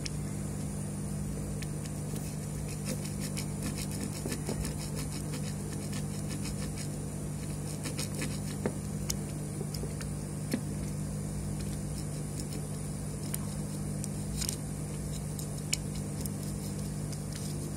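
Steady low hum, with faint scattered ticks and scrapes of a metal scraper prying under a surface-mount chip while a soldering iron melts its pins, lifting the chip off a PS4 power-supply board to test whether it is the part causing a short.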